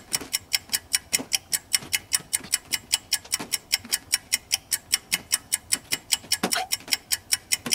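Fast, even clock-ticking sound effect, about five ticks a second, counting off the seconds of a timed challenge.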